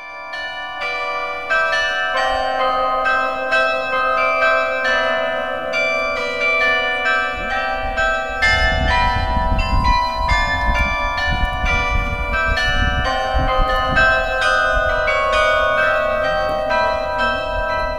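Carillon of 49 tuned bells playing a melody, note after note struck and ringing on over one another. A low rumble joins about halfway through.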